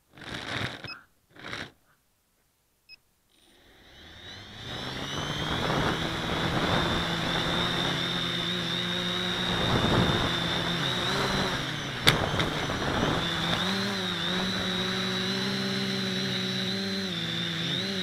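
Small FPV quadcopter's electric motors and propellers spinning up about three seconds in. They settle into a steady high whine over a lower buzz that wavers in pitch with the throttle. A sharp click sounds about twelve seconds in.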